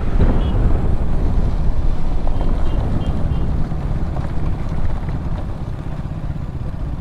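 Motorcycle on the move: a steady rush of wind and engine noise, strongest in the low end, that eases off gradually over the last few seconds.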